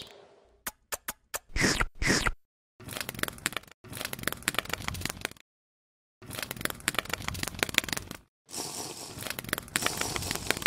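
Crunching, crackling sound effects laid over clay stop-motion animation, in several separate bursts of a second or two, each cut off sharply by dead silence. A few short clicks come about a second in.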